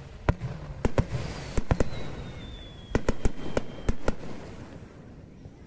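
Fireworks bursting: a quick series of sharp bangs in two clusters, with a thin high whistle sliding slowly downward between them. The bangs stop about four seconds in.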